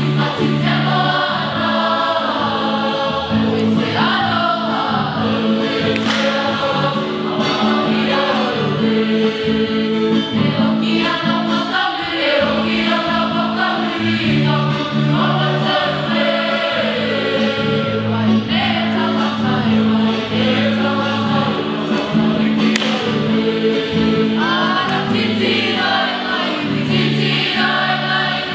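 A choir of voices singing a song, plausibly the Māori song the school was asked to sing, over an accompaniment of held chords that change every couple of seconds.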